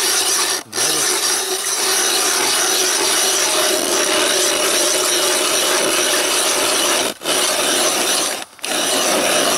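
Ice auger drilling down through snow and ice: a steady rasping scrape of its blades cutting, broken by brief pauses under a second in and twice near the end.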